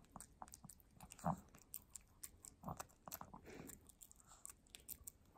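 A Pomeranian eating wet dog food from a plate: faint, irregular wet chewing clicks, with a few louder chomps.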